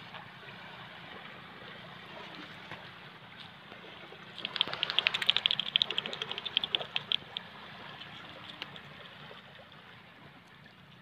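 Steady wind and surf noise. About four seconds in, a burst of rapid crackling clicks lasts around three seconds.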